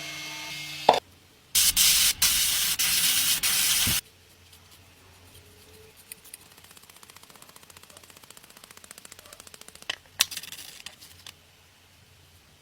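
Loud hissing spray of compressed air lasting over two seconds, with brief breaks. It is followed by a faint rapid ticking, then short hisses again near the end.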